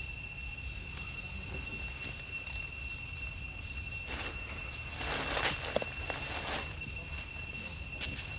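Outdoor forest ambience with a steady, high-pitched insect drone. A few brief rustling noises come in the second half.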